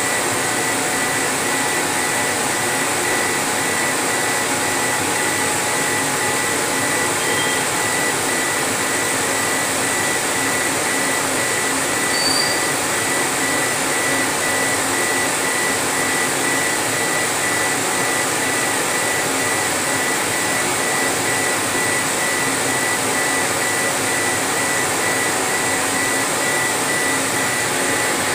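CNC laser engraving machine running as its head sweeps back and forth engraving a wooden sheet: a steady airy whir with a faint steady high tone.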